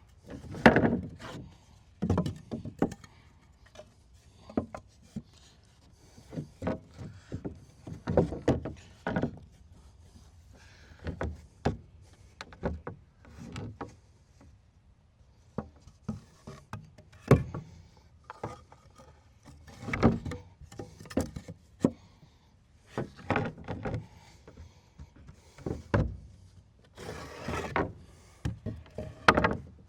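Lumber being handled on a wooden shed deck: irregular knocks, thuds and scraping of wood on wood.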